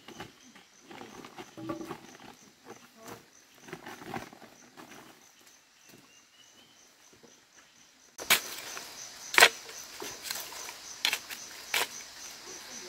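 Soft rustling and footsteps through leafy undergrowth, then a small hoe chopping into soil: a handful of sharp strikes about a second apart, digging for earthworms.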